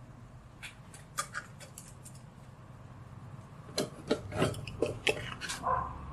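Stick of charcoal scratching and rubbing across drawing paper in short strokes: a few light strokes in the first two seconds, then a quick run of heavier strokes. A short pitched sound comes right at the end.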